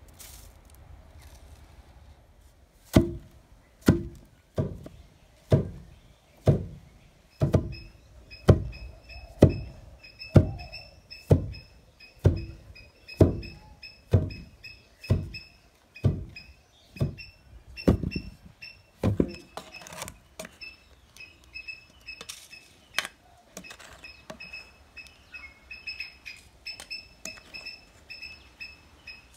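A wooden pestle pounding soaked rice into flour in a deep wooden mortar: heavy, deep thuds about once a second, around eighteen strokes, then lighter, quieter knocks for the last ten seconds. A faint high pulsing tone runs in the background from a few seconds in.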